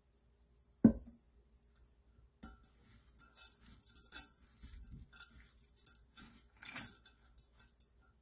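A single sharp knock about a second in. Then, from about two and a half seconds, hands toss and squeeze blanched chwinamul greens with seasonings in a stainless steel bowl: an irregular wet rustling with occasional light ticks against the bowl.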